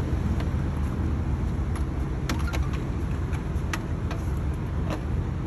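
A steady low rumble with a few sharp clicks scattered through it, from the plastic body and clips of an Arrma Infraction 6S RC car being handled and unclipped.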